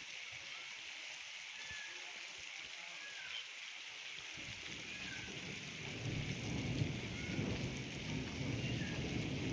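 Steady heavy rain hissing down; about four seconds in, a low rumble of thunder sets in beneath it and grows louder.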